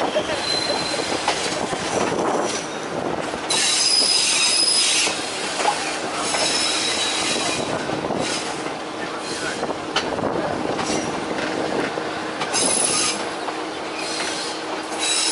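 Passenger train's steel wheels running on the rails, a steady rumble and clatter, with a high-pitched wheel squeal in spells, loudest about 3.5 s in and again near 12.5 s, as the train rounds a tight curve.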